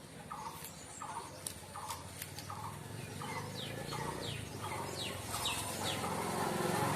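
Birds calling in the background: a regular run of short calls about every 0.7 s, with quick falling higher notes in the middle. A few sharp clicks come in the first two seconds.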